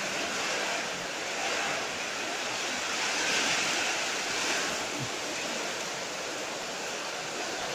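Heavy rain pouring down steadily in a strong wind, the hiss swelling briefly about three seconds in.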